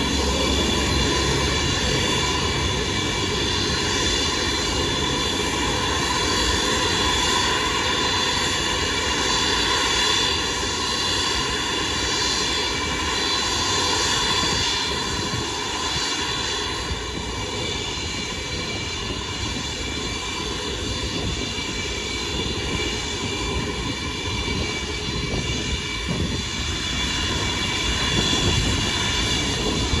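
Antonov An-124-100's four D-18T turbofan engines running at taxi power: a steady, many-toned high whine over a low rumble, easing slightly in loudness partway through.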